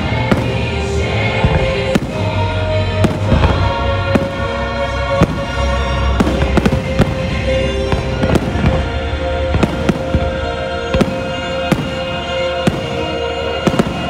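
Aerial firework shells bursting in a quick series of sharp bangs, about one or two a second, over the show's music soundtrack with a long held note.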